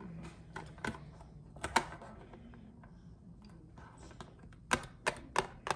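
Light clicks and taps of small plastic toy figurines being handled and set down on a tabletop: a few scattered clicks, then a quick cluster of louder ones near the end.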